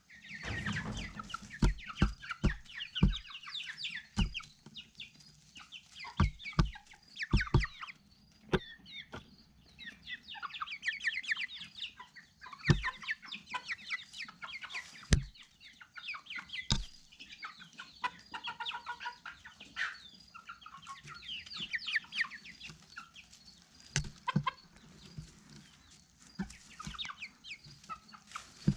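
A flock of chickens clucking and calling, with many short calls and frequent sharp taps and knocks among them.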